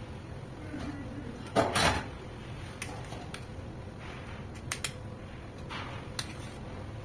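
Kitchen clatter from a spoon working diced avocado inside a steel ring mold: a few light clicks and one louder, short scraping clatter about two seconds in, over a steady low hum.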